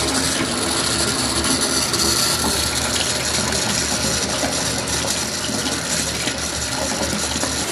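Water gushing from a bathtub spout into the tub. It comes on suddenly as the faucet handle is turned, then runs steadily as the tub fills.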